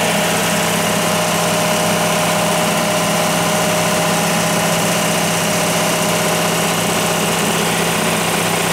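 Ingersoll Rand G170 diesel generator, driven by a John Deere 6.8 L diesel engine, running steadily at a constant speed with an even hum.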